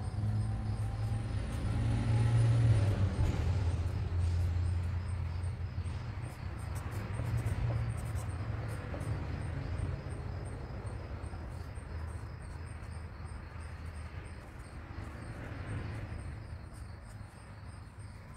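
A low, steady motor rumble, loudest in the first few seconds and slowly fading away over the second half.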